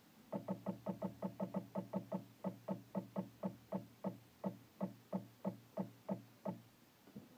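Taig CNC mill's stepper motors giving over two dozen short, pitched buzzes, about six a second at first and slowing near the end: the spindle is being jogged down in small steps to touch the end mill off on a sheet of paper.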